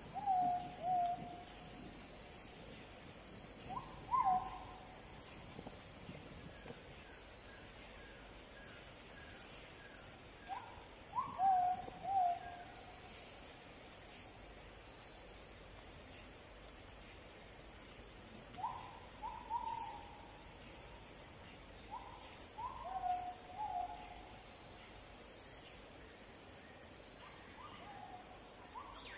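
A bird hooting: short notes that fall in pitch, coming in twos and threes every few seconds, over a steady high drone of insects.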